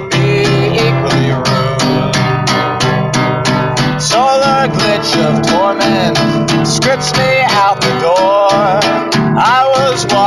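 Music: acoustic guitar strummed in a steady rhythm, with a wavering melody line coming in over it about four seconds in.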